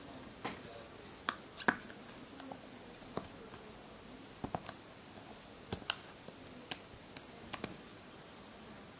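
Irregular sharp clicks and taps, about a dozen spread over several seconds, from a small plastic GPS unit being handled and set against a table.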